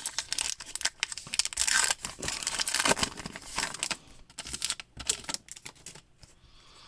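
Trading-card pack wrapper being torn open and crinkled, a run of crackling rustles that thins out about five seconds in.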